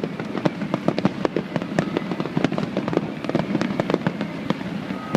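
Fireworks display: a dense, unbroken run of sharp crackling pops and bangs from bursting shells, several a second and irregular.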